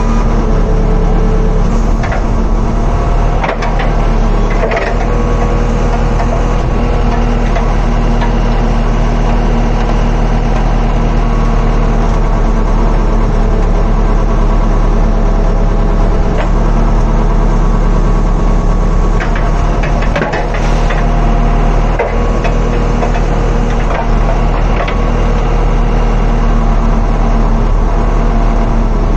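JCB backhoe loader's diesel engine running steadily under load, heard from inside the operator's cab as the backhoe arm is worked. A few short knocks come through, about three to five seconds in and again near the twenty-second mark.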